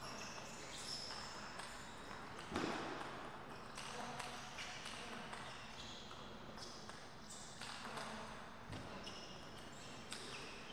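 Sports shoes squeaking on the vinyl court floor, many short high squeaks as the players move about between points, with a sharp knock about two and a half seconds in.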